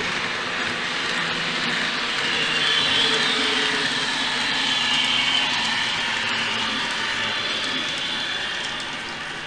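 N gauge Class 321 electric multiple unit model with a DCC sound decoder running past, its small speaker playing electric unit running sounds over the model's wheels and motor on the track. It gets louder as the train passes about three to five seconds in, then fades as it moves away while slowing under heavy inertia settings.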